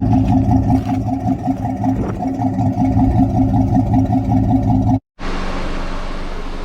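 Honda Civic's engine running steadily with a fast rhythmic pulse. It cuts off abruptly about five seconds in, and a steady hiss follows.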